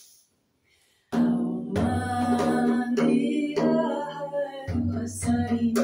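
A woman's solo voice singing a slow melody in long held notes, starting about a second in after a brief silence.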